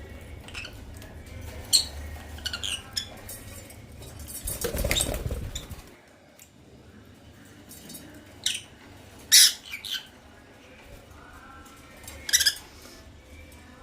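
African lovebirds giving short, high-pitched chirps every second or two, with a brief flurry of wing flapping about five seconds in.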